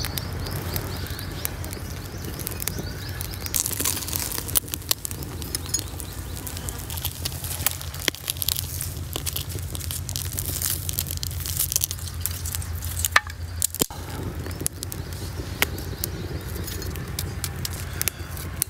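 Small twig fire crackling, with the rustle and scrape of hands, dry twigs and leaves as charred chicken feet are handled over the embers; a steady low hum runs underneath.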